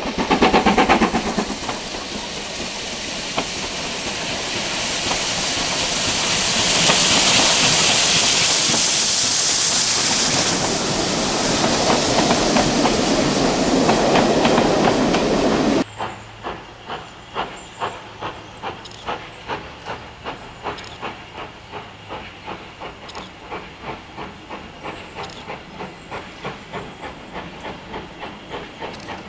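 Steam train: a loud, continuous hiss of steam for about sixteen seconds that cuts off suddenly, followed by a quieter, steady rhythm of beats, about three every two seconds.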